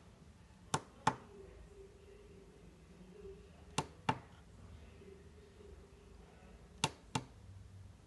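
Tactile push-button switches on a 4x4 matrix keypad clicking as three keys are pressed in turn, each giving a quick double click as the button is pressed and released.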